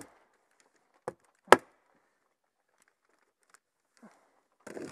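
Hammer stapler (hammer tacker) driving staples through Tyvek house wrap into the wall: three sharp strikes in the first two seconds, the last one the loudest.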